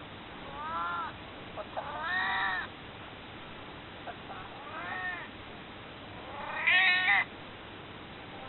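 Elderly domestic cat, nearly 22 years old, meowing four times to be picked up and held. The fourth meow, near the end, is the loudest.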